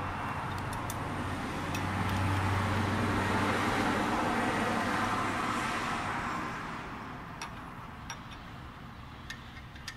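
Steady running noise of shop machinery with a low hum, louder for a few seconds and then dying away after about six seconds. A few light metallic clicks follow as a mill hold-down clamp is handled.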